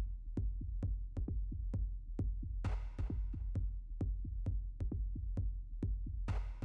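Background electronic dance music with a steady drum-machine beat, a little over two beats a second, over heavy bass, with a hissing swell coming in about every three and a half seconds.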